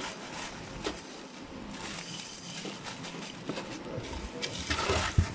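Many small stamped aluminium jalousie hinges clinking and rattling against each other as they are scooped by hand into a clear plastic bag, with the crinkle of the plastic. A louder jangle and a thump come about five seconds in.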